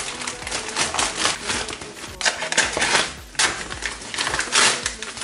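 Plastic courier mailer bag crinkling and crackling as it is handled and slit open with a kitchen knife, in a rapid, irregular run of crackles.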